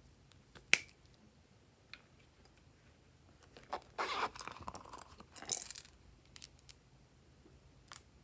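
A single sharp click as a plastic glue-stick cap is pulled off, then about two seconds of scraping and rustling as a silicone hamburger-shaped pop-it case is opened and handled, followed by a few faint light clicks of small erasers being picked out.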